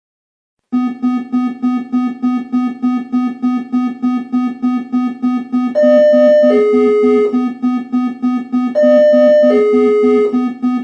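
Electronic panic alarm: a loud, pulsing low buzzing tone, about three pulses a second, starts under a second in. In the second half a higher two-note tone that steps down in pitch is laid over it twice.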